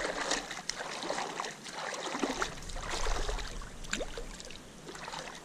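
A hooked barracuda of about 40 cm splashing and thrashing at the water's surface while it is reeled in on a spinning rod, with many scattered sharp clicks.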